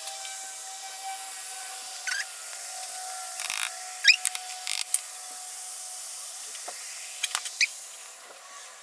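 Vinegar and baking soda fizzing in a stainless steel pot, a steady high hiss of bursting bubbles that fades near the end. A few light clicks and scrapes come over it.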